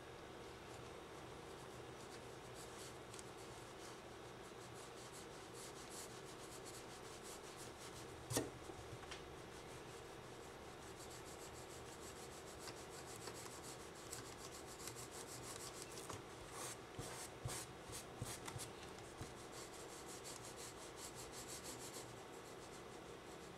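Pencil scratching across sketchbook paper in quick shading strokes, thickest in the second half, over a steady background hum. A single sharp knock about eight seconds in.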